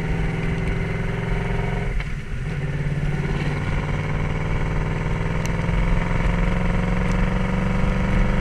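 Yamaha Royal Star motorcycle's V4 engine running under way. It dips briefly about two seconds in, then slowly rises in pitch as the bike picks up speed.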